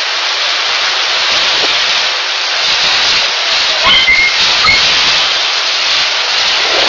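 Heavy downpour: a loud, steady, dense hiss of rain.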